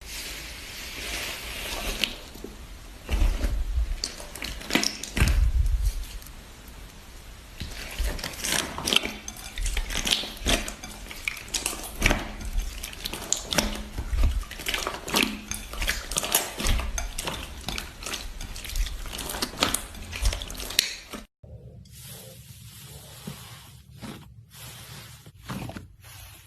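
Slime being squished and worked by hand, with a dense run of wet clicks, crackles and pops. It cuts off suddenly about 21 seconds in, and a quieter stretch with only a few clicks follows.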